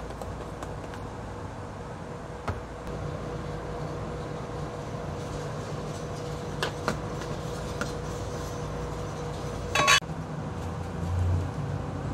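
Clinks and knocks of containers being handled over a stainless steel mixing bowl as flour and cornmeal are poured in. A few light clicks come first, then a loud sharp ringing clink just before ten seconds in, the loudest sound, and a dull bump soon after, all over a steady low hum.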